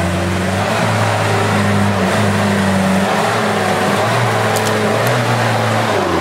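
Double-cab 4x4 pickup's engine revving loudly under load as it drives through deep mud, the pitch rising and falling with the throttle.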